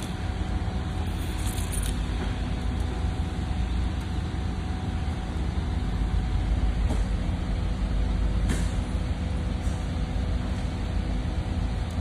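Steady low background rumble with a few constant hum tones, broken by two or three faint clicks, once about one and a half seconds in and again about eight and a half seconds in.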